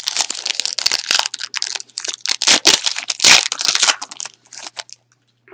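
A trading-card pack's wrapper being torn open and crinkled: a dense crackling that is loudest about three seconds in and dies away near the end.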